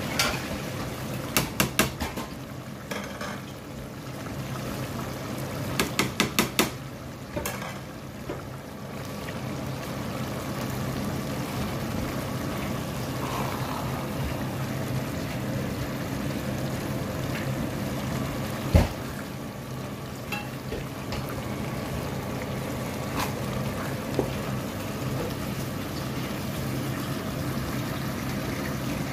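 A pot of chicken keema and peas simmering and bubbling over a low steady hum while a wooden spoon stirs it. Two quick runs of about four taps, near the start and about six seconds in, and one louder knock later, are the spoon striking the metal pot.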